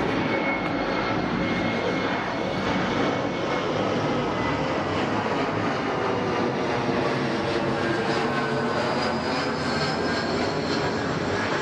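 Steady roar of an aircraft flying over, with faint tones that slowly fall in pitch as it passes.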